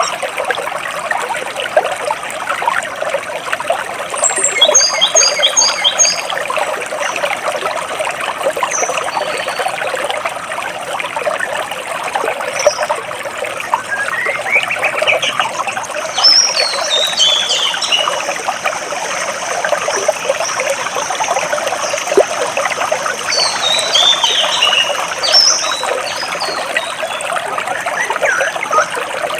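Stream water flowing and trickling steadily between rocks, with songbirds singing over it: a quick run of repeated high notes about four seconds in, a rising call, then falling trills around the middle, and more falling notes later on.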